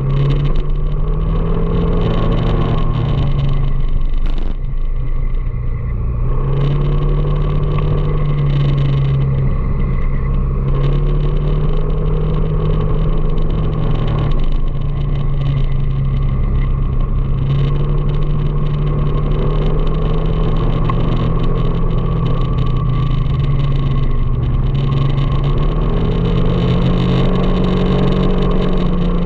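Engine of the vehicle being ridden, running steadily with its pitch rising and falling several times, over a constant rumble of road noise.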